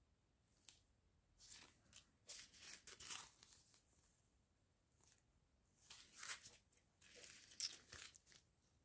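Small plastic zip bags of round diamond-painting beads crinkling as they are handled, in two faint spells of rustling.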